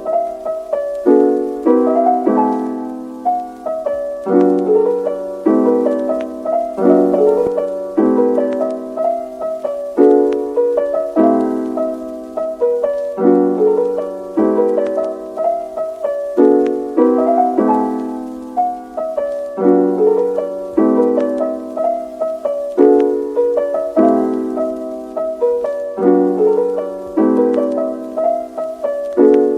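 Background music: a gentle piano melody, a repeating pattern of struck notes that ring and fade.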